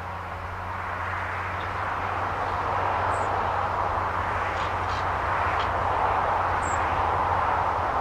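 New Holland T7060 tractor's six-cylinder diesel engine working under load, pulling a plough through the soil: a steady drone that grows louder over the first three seconds and then holds. Two brief high bird chirps sound about three seconds in and near seven seconds.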